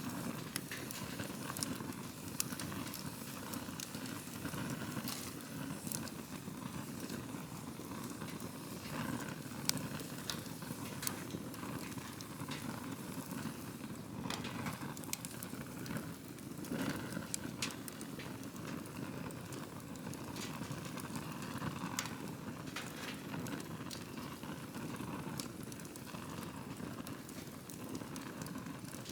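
Wood campfire burning with a steady low rush of flame and irregular sharp crackles and pops, a few louder snaps standing out.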